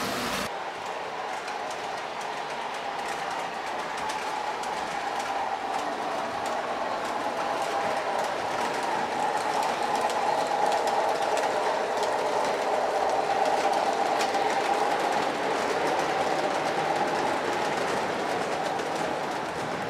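O gauge three-rail model freight train rolling past, its wheels running on the metal track with a steady hum and light clicking over the rail joints. It grows a little louder around the middle, then eases off.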